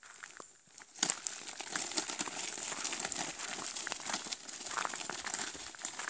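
Steady crunching of footsteps on a gravel path, starting about a second in.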